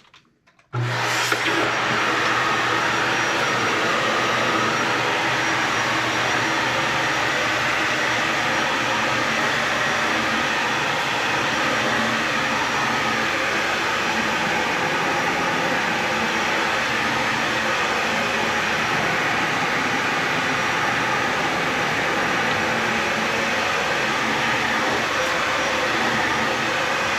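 Dyson Ball Animal 3 upright vacuum cleaner switched on about a second in, then running steadily while it vacuums dry carpet.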